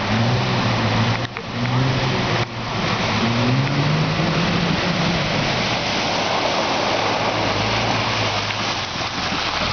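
Nissan four-wheel drive's engine pulling through a river crossing, its note rising about three seconds in, under a steady rush of splashing water from the bow wave.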